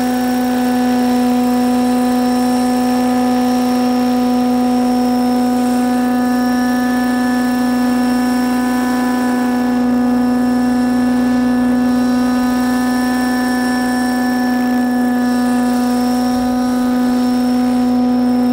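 Thunder Tiger Raptor 90 SE radio-controlled helicopter hovering, its O.S. nitro engine and rotor giving a loud, steady drone at one unchanging pitch.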